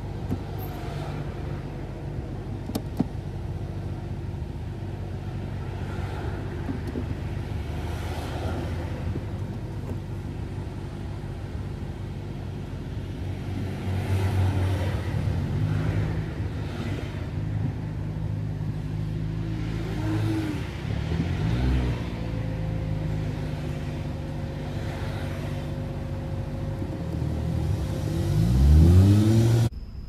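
Car engine and traffic noise while driving, with the engine note rising as the car speeds up, twice in the later part and loudest just before the end. The sound then cuts off suddenly.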